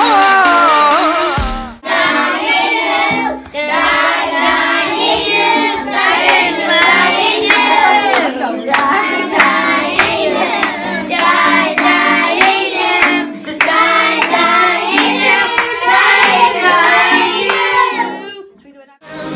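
A song with several voices singing over a steady backing line, with hands clapping along. It starts after a short break about two seconds in and stops shortly before the end.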